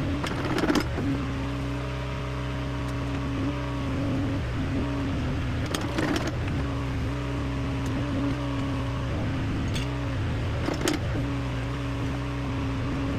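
Diesel engine of John Deere heavy equipment running steadily, with three sharp metallic clanks spread through it.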